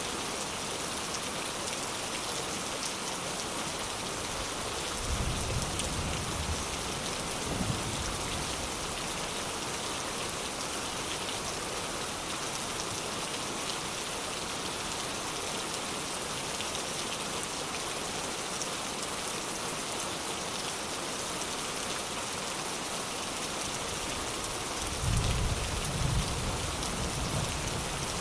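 Steady rain falling on a surface, an even hiss of drops. A few low rumbles rise under it, about five and seven seconds in and again near the end.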